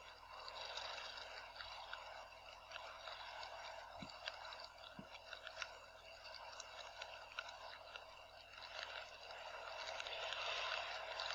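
Rain falling, a faint steady hiss with many small scattered drop ticks and crackles.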